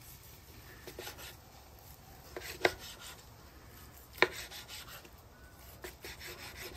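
Chef's knife slicing a cooked chuck-eye steak on a cutting board: quiet sawing strokes through the meat, with two sharp taps of the blade on the board, about a second and a half apart.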